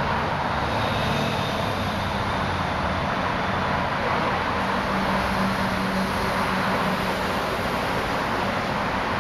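Steady noise of heavy traffic on the Brooklyn-Queens Expressway overhead, with a lower engine hum that swells for a couple of seconds around the middle.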